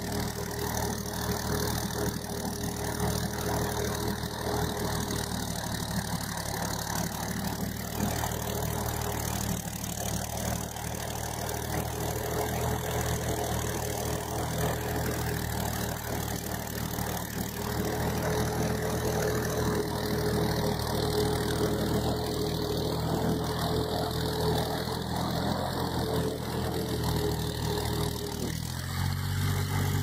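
Fiat 480 tractor's three-cylinder diesel engine running steadily under load as it pulls a plough through the soil. The engine note shifts near the end.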